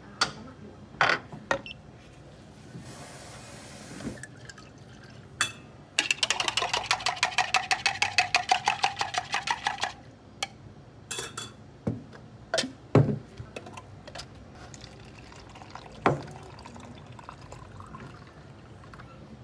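Tea shaken in a plastic cocktail shaker, a fast, even rattle of about eight strokes a second lasting about four seconds, followed by a few knocks of the shaker and cup being set down on the counter.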